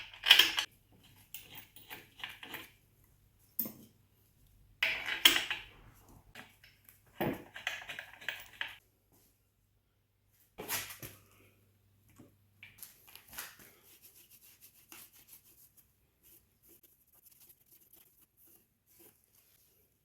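Metal tools and parts clinking and clanking in several bursts, the loudest near the start; a faint low hum stops about two-thirds of the way through, leaving only scattered light ticks.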